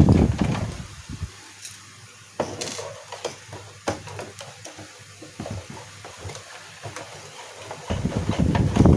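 Clicks and knocks of a projector's plastic casing and parts being handled and taken apart, scattered through the middle, with a louder irregular low rumble of handling noise at the start and again near the end.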